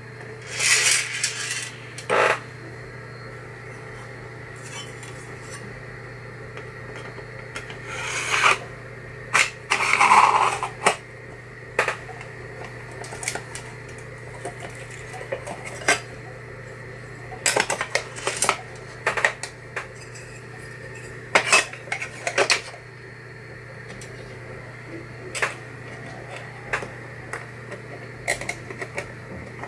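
Aluminium electronics enclosure and sheet-metal mounting plate being handled: scattered metallic knocks, clinks and short scrapes, over a steady low hum.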